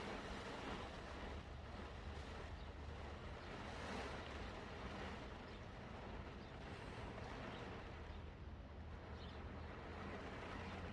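Heavy rain pouring down in a steady hiss, with wind rumbling over the microphone.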